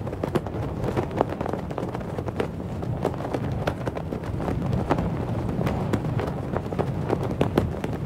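Flag fabric flapping in the wind: irregular sharp snaps and flutters over a steady low rumble of wind.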